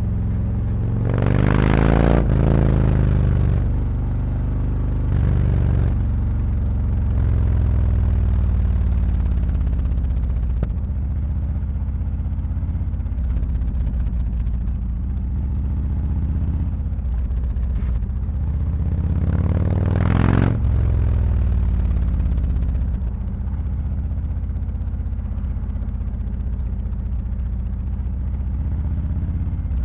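Harley-Davidson Road Glide's V-twin engine running through SuperTrapp slip-on mufflers with 4-inch internal discs while riding in city traffic: a steady low exhaust note, with two brief louder swells, about two seconds in and again about twenty seconds in.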